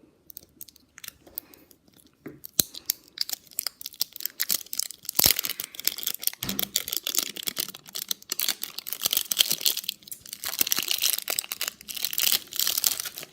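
Wrapper of a candy surprise egg being torn open and crinkled by hand: irregular crackling and tearing, sparse at first and then dense for most of the time.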